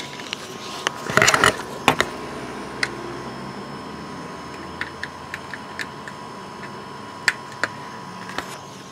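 A USB plug and cables being handled and plugged in: a rustle and a sharp click about two seconds in, then scattered light clicks and ticks over a steady background hum.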